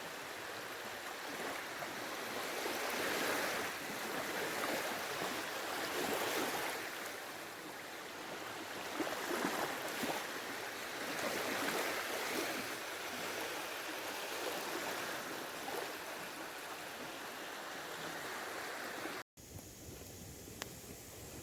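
Small sea waves washing onto a beach, the wash swelling and fading every few seconds. Near the end it cuts to a much quieter steady hiss.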